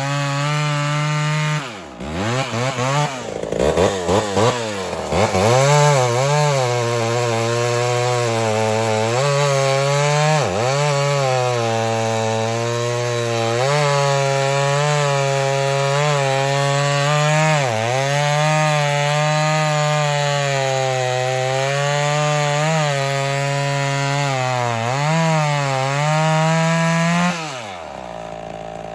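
Two-stroke chainsaw cutting through a large log, its engine pitch sagging and recovering again and again under load, with fast revving swings a few seconds in. Near the end the engine dies and its pitch falls away, as if running out of fuel, which the owner puts down to the carburettor leaking at the diaphragm.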